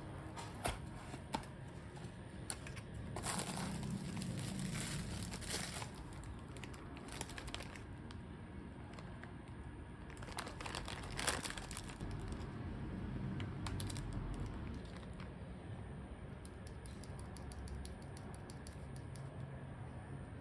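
Plastic packaging being handled and crinkled while items are unboxed, in two spells of rustling with a few tearing sounds, and scattered light clicks between them.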